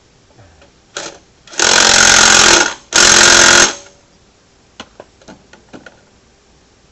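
Power impact wrench hammering a bolt tight in two bursts, the first about a second long and the second a little shorter, fastening a belt stabilizer to a Can-Am belt guard. A short blip comes just before them, and a few light metal clicks follow near the end.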